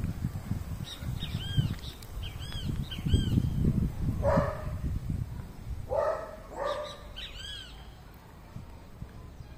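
Wild birds calling: repeated short arched chirps, and three lower, harsher calls between about four and seven seconds in. A low rustling rumble runs under the first half.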